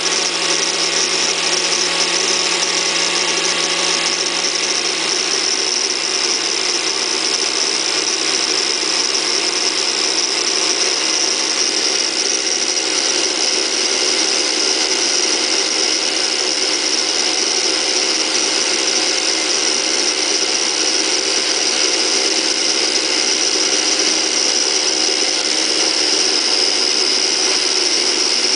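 Bosch angle grinder fixed to a small lathe, its disc grinding a hardened ball screw spindle turning in the chuck: a steady high whine over the hiss of abrasive grinding on hardened steel.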